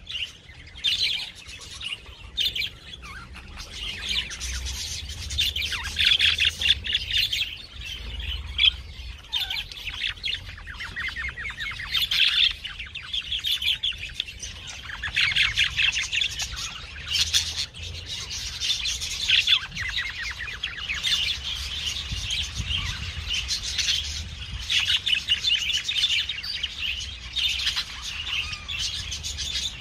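Parrots chirping: a busy, continuous stream of short, high twittering calls, many overlapping.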